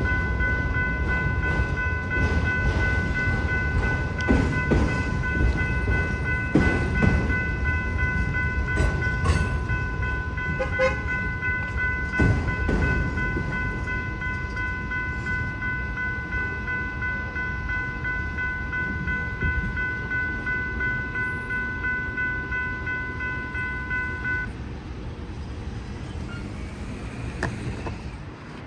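Freight train rumbling past a grade crossing while the crossing's warning bell rings continuously. The bell cuts off sharply near the end as the crossing deactivates, and the train's rumble fades.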